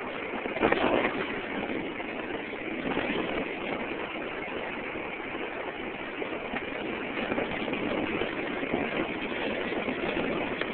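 Steady rushing noise of a bicycle ride on a mobile phone's microphone, with a louder burst of noise about a second in.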